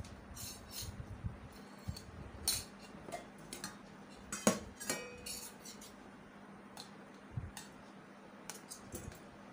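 Stainless-steel spoon, bowls and plates clinking in scattered light knocks as food is served, with the loudest clink about halfway through and a short metallic ring just after it.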